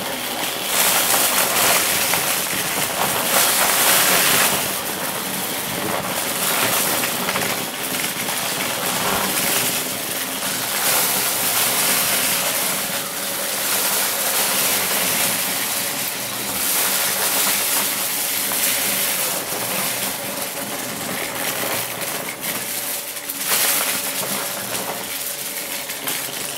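Dyson Ball upright vacuum running and sucking up a crunchy mess of small hard colourful pieces, the bits crackling and rattling up through the cleaner head. The sound swells and dips as the head is pushed back and forth.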